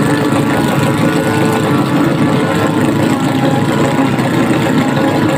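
Several racing boats' outboard motors running hard together while the boats are held in place, propellers churning the water. The engine drone is loud and steady.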